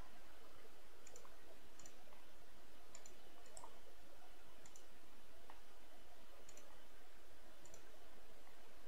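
Faint computer mouse clicks, each a quick double tick of press and release, coming every second or so, over a steady low hum.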